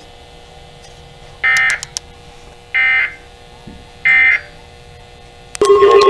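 NOAA Weather Radio end-of-message signal from weather-alert radios' speakers: three short, screechy digital SAME data bursts about a second and a half apart, marking the end of the warning broadcast. Near the end a loud steady alarm tone starts up as the radios begin the next alert.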